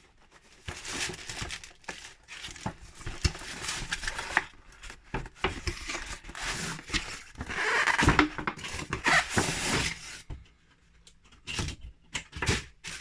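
Toy helicopter packaging being opened and handled: rustling, crinkling and tearing with many small knocks and clicks, loudest about eight seconds in.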